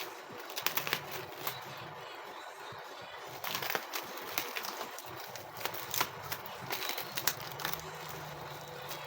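Irregular small clicks and crackles over a steady background hum, clustered in two spells: one near the start and a longer one through the middle.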